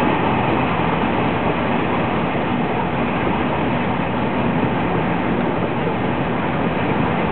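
Steady running noise of a moving passenger train, heard from inside the carriage.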